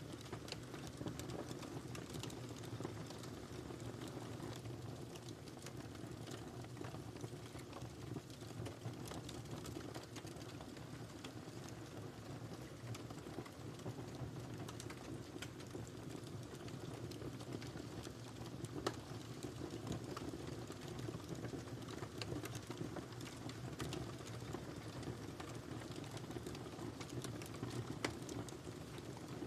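Wood fire burning in a fireplace: a steady low rumble of flame with constant irregular crackling, and a couple of sharper pops.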